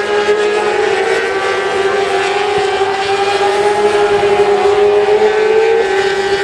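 600cc supersport race motorcycles running flat out at high revs, a sustained engine note that climbs slowly and drops back suddenly near the end.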